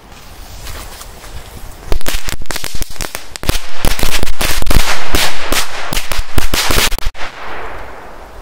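A bundle of Korsar firecrackers with small ball crackers set off together: a fizzing hiss builds for about two seconds, then a rapid, irregular string of loud bangs runs for about five seconds and dies away into a fading hiss.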